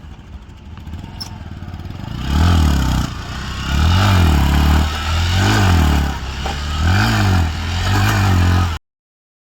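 Motorcycle engine running at a low, steady speed, then blipped about five times in a row, each rev climbing and falling back within about a second. The sound cuts off abruptly near the end.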